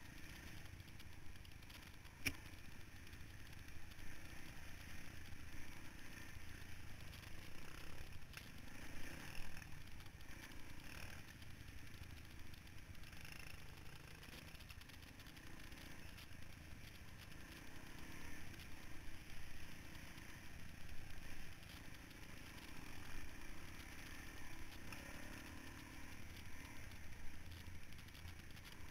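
Dirt bike engine running steadily as the bike rides over rough, rooted trail, with clatter from the bike over the bumps and a sharp click about two seconds in.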